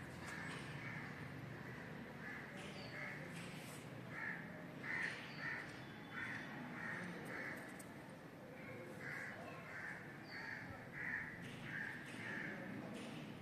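Crows cawing over and over, in irregular runs of short calls, with a few faint higher bird chirps.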